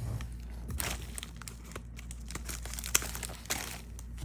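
Bubble-wrap packaging being handled and pulled open, with scattered crinkling and crackling and a few sharp ticks.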